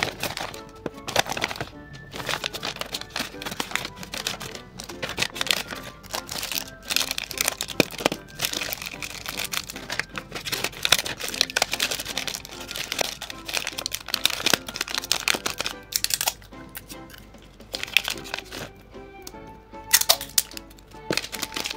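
Paper crinkling and rustling, with many quick irregular clicks and taps, as a handmade paper blind bag is handled and folded shut. Light background music plays under it.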